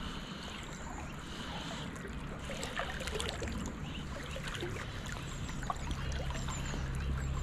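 River water flowing and trickling, with a low rumble building in the last couple of seconds.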